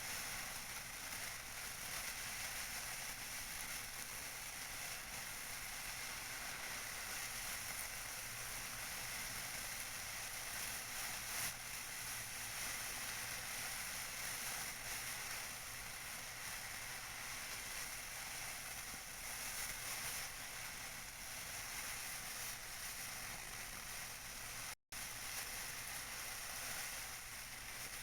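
Tissue paper being crinkled by hand: a dense, steady crackle that cuts out for an instant near the end.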